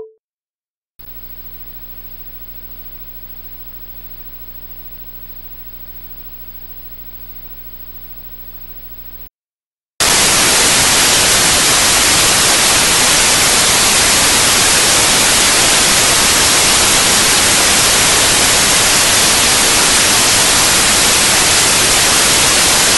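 Computer program sound effects. First a quieter, steady low buzzing hum for about eight seconds. Then, after a short gap, a loud, steady hiss of white-noise static, the program's sound for its 'Static' image effect.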